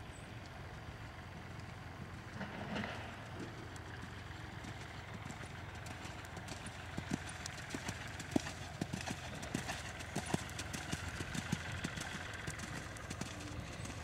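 A horse trotting on arena sand: its hoofbeats come as a quick run of soft thuds and clicks that grow louder about halfway through as the horse passes close by. A steady low rumble lies underneath.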